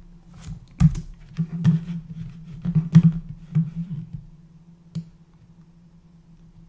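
Computer keyboard keys being pressed: a scattered run of light taps over about three seconds, then a single click about five seconds in. A faint low steady hum runs underneath.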